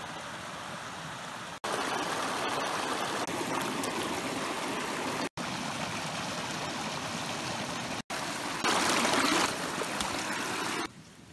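Creek water running steadily, heard as several short clips joined by abrupt cuts; loudest a little before the end.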